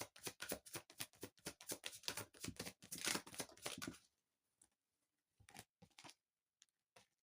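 Tarot cards shuffled by hand: a quick run of papery flicks for about four seconds, then a few scattered soft taps as a card is handled.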